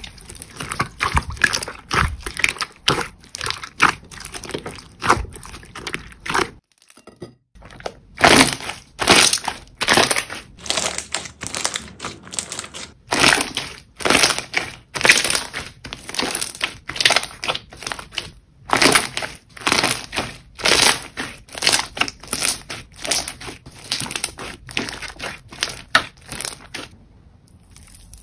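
Jelly slime being squeezed and pressed, a fast run of sharp squishing crackles, several a second. They break off briefly about seven seconds in and stop shortly before the end.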